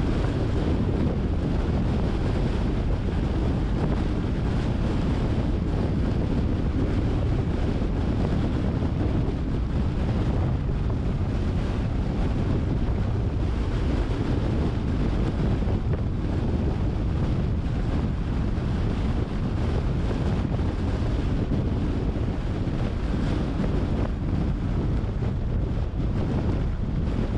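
Steady wind and road noise from a moving car, with wind buffeting the microphone; the noise is deep and unbroken throughout.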